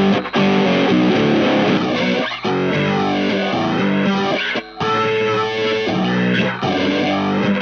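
Baritone electric guitar tuned down to B, played through a Galactic Fuzz pedal: thick, heavily fuzzed riffing with short breaks between phrases. From about two seconds in, a slow phaser sweeps up and down through the tone, giving a hollow sound.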